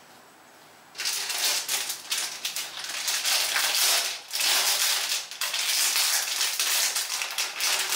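Skincare mask packet crinkling and rustling as it is handled, starting about a second in and running on with a couple of short pauses.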